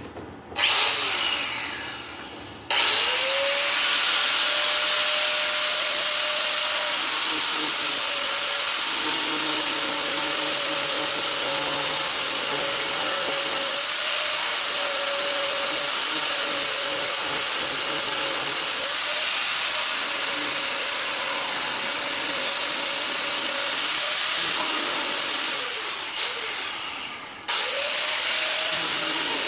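Electric power tool cutting away wood from a wooden blade: a brief burst about half a second in, then it spins up with a rising whine and runs steadily, its pitch dipping slightly now and then under load. It winds down near the end and starts again about two seconds later.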